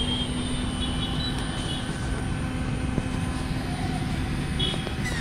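Steady street noise: a low traffic rumble with a faint steady hum that drops out about four and a half seconds in.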